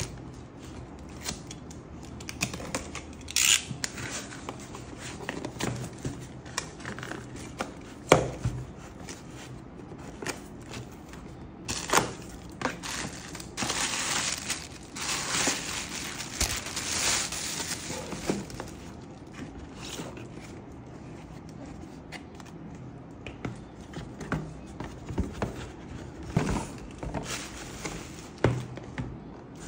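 Packaging being opened and handled by hand: crinkling and tearing of wrap and cardboard with scattered taps and knocks. The sharpest knock comes about eight seconds in, and a longer spell of tearing and crinkling runs through the middle.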